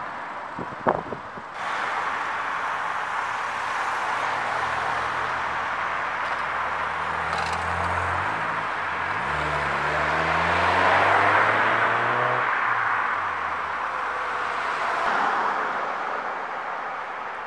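A car driving past close by. Its tyre noise swells to a peak and fades, and its engine note rises as it accelerates in the middle. A few sharp knocks come in the first second.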